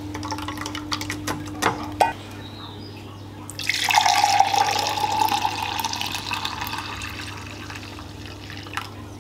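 Beetroot juice poured from a bowl into a glass jug: a splashing pour that starts about three and a half seconds in, loudest at first and slowly trailing off. Before it, a few light clicks and taps.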